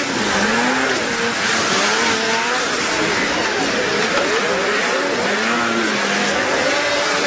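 Several racing snowmobile engines revving at once, their overlapping pitches rising and falling as the sleds accelerate and back off through the turns, over a steady rushing noise.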